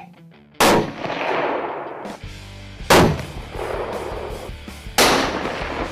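Three loud gunshots about two seconds apart, each trailing off in a long echo, with background music starting after the first.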